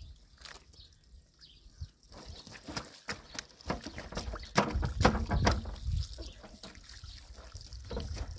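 A thin stream of water from a garden hose trickling and splashing onto bare feet and a wet towel on a plastic tarp, with irregular drips and spatters. A louder low rumble comes in about halfway through.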